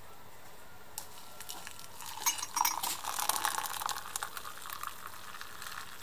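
Hot water poured from an electric kettle into a ceramic cup onto instant coffee granules and a metal spoon. The pour starts about two seconds in, loudest soon after, then eases off.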